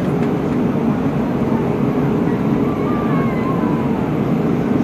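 Steady drone of an Airbus A319 airliner in flight, a loud even rushing noise with a constant low hum under it.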